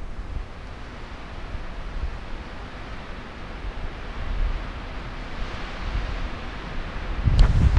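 Wind on the microphone: a steady rushing hiss over gusty low rumbles, swelling a little past the middle. Near the end there is a sudden loud low thump with a sharp click.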